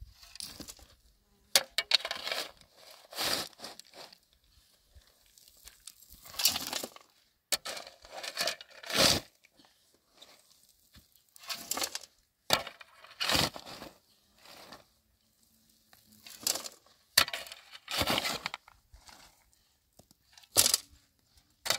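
A steel shovel scraping and digging into stony, gravelly ground, with stones tipped into a metal wheelbarrow, in irregular scoops every second or two and a few sharp knocks.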